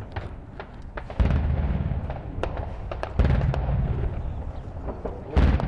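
Gunfire during a street battle: scattered single shots throughout, with three heavy booms about two seconds apart, each trailing off in a low rumble.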